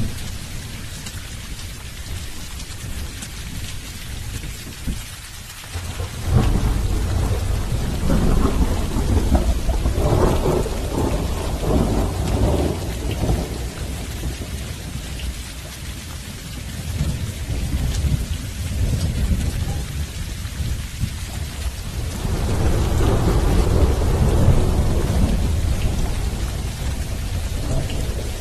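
Heavy rain falling steadily with thunder from a severe lightning storm. A deep rumble breaks in suddenly about six seconds in and runs on for several seconds, a smaller one follows, and another long rumble swells near the end.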